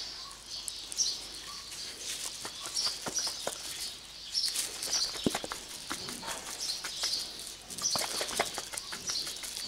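A glass mason jar shaken by hand, a solid lump of butter and thin buttermilk sloshing and knocking inside it: the cream has broken into butter and buttermilk. Birds chirp over and over in the background.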